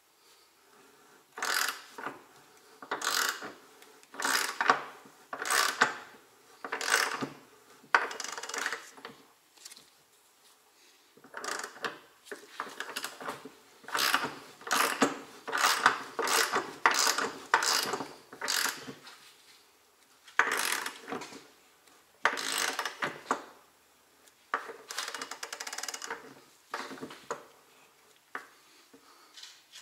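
Ratchet wrench clicking in repeated short strokes, with pauses between runs, as it turns the threaded press tool that draws a new front wheel bearing little by little into the hub.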